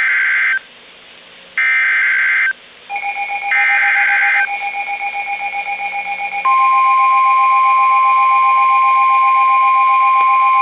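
Emergency Alert System SAME header: three bursts of warbling digital data tones, about a second each. A lower pulsing alert tone starts about three seconds in, and a steady higher tone, the NOAA Weather Radio 1050 Hz warning alarm, joins about six and a half seconds in.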